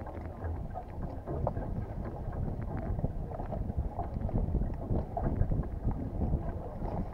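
Wind buffeting the microphone of a bow-mounted camera on a small motorboat moving slowly, an uneven low rumble with no clear engine note.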